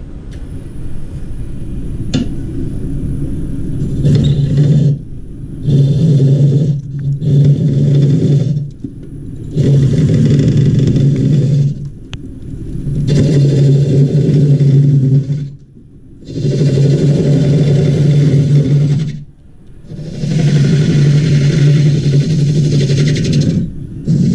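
Wood lathe running while a gouge hollows the end grain of a grey alder vase blank. For about the first four seconds only the lathe runs. Then come about seven cutting passes, each a second or more long, separated by brief pauses as the tool is drawn back.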